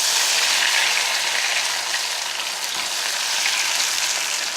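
Cubes of leftover idli frying in hot oil in a kadai, sizzling steadily.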